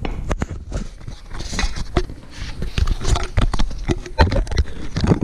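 Irregular metallic clicks and knocks from a socket ratchet and a steel engine-mount bracket being handled, with no steady rhythm, busiest about three to four and a half seconds in.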